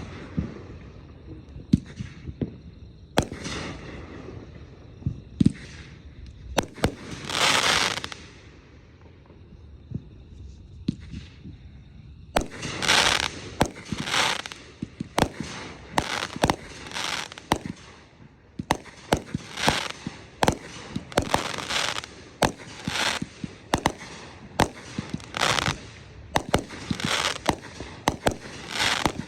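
Consumer fireworks going off: scattered sharp bangs and a long hiss early on, a lull, then from about twelve seconds in a rapid run of hissing bursts roughly once a second with sharp cracks between them.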